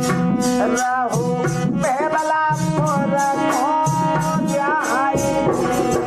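Indian folk song accompaniment: drums keep a steady beat under long held tones and a melody line that bends up and down in pitch.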